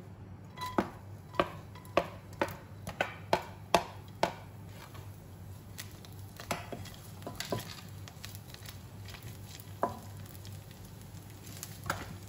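Chopped garlic sizzling gently in oil in a nonstick wok. Over the first four seconds there is a quick run of about eight sharp knocks from a wooden spatula against the pan and bowl as the garlic is tipped in and spread, then soft stirring with two more taps near the end.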